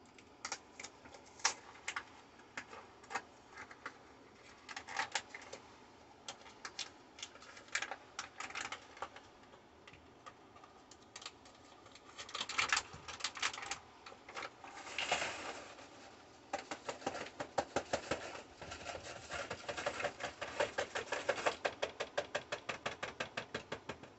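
A cardboard box of cornbread mix being opened and its paper inner bag crinkled and torn, in scattered crisp clicks and rustles. Then the bag is shaken over a bowl in fast, even taps, about four to five a second, as the dry mix pours out.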